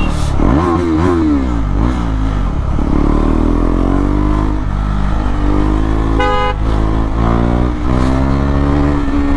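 KTM Duke 390's single-cylinder engine through an SC Project CR-T exhaust, revved up and down sharply for the first couple of seconds, then pulling under throttle with a steady, slowly rising note. A vehicle horn sounds briefly about six seconds in.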